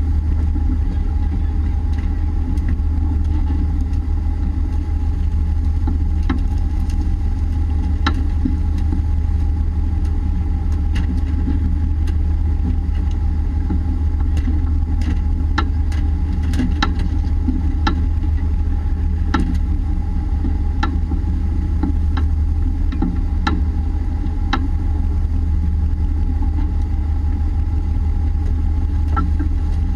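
Fishing boat's machinery running with a steady low drone and a faint steady whine, under scattered sharp knocks from work on deck, thickest in the middle, including a wooden club striking landed tuna.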